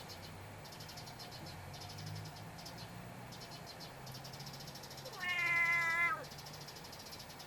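Black kitten giving one high meow-like call, about a second long, a little past the middle, dropping slightly in pitch at its end: the cry a cat makes at the sight of a sparrow. A faint, pulsing high buzz continues behind it.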